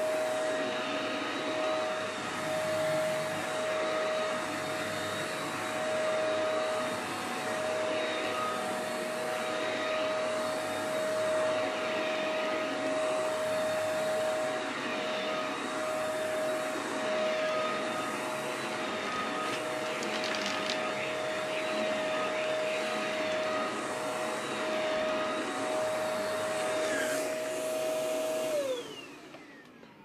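Shark Navigator NV201 upright vacuum cleaner running on carpet, a steady motor whine under the rush of air, swelling and fading as it is pushed back and forth. Near the end it is switched off and the motor winds down with a falling pitch. It is running normally and picking up well.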